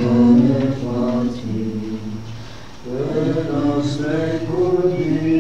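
Congregation singing a hymn together, mixed voices holding long notes, with a short break between lines about two and a half seconds in.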